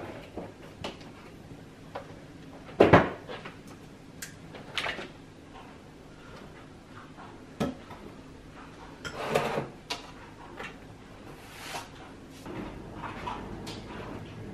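Household handling noises: a scattering of short knocks and clicks, like cupboards, drawers or objects being handled, with a sharp knock about three seconds in and a longer clattering rustle a little past the middle.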